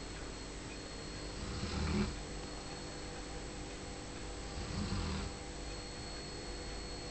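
Bull Arab dog snoring in its sleep: two slow, low snores about three seconds apart, each lasting about half a second.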